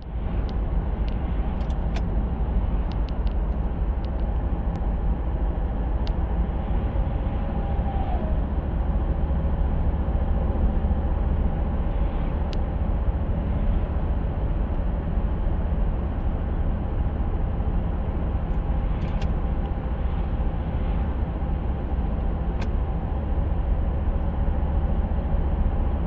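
A car driving, with a steady low rumble and a hum holding steady tones over it: a driveline hum that the owner puts down to the Aisin TF-80SC six-speed automatic gearbox or the differential.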